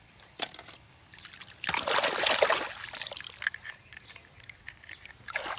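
Water splashing and trickling, with a loud rush of splashing about two seconds in that lasts about a second, then light dribbling and drips.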